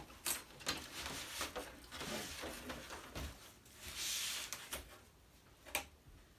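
Scattered light clicks, knocks and scraping of plastic TV parts being handled and pried apart, with a brief rustling scrape about four seconds in and a sharp click near the end.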